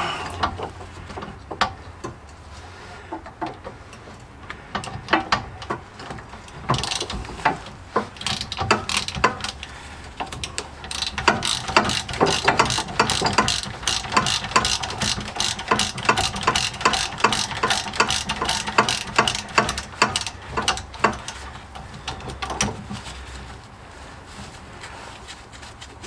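Hand socket ratchet clicking as a bolt is turned, in quick runs of strokes, sparse at first and densest through the middle.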